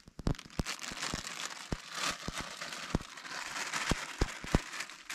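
A clear plastic bag crinkling and crackling in gloved hands as pieces of cauliflower mushroom are packed into it, with irregular sharp crackles.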